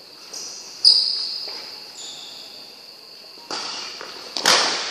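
Badminton rally: rackets striking a shuttlecock several times, roughly a second apart, with the loudest hit near the end. A steady high-pitched drone runs underneath throughout.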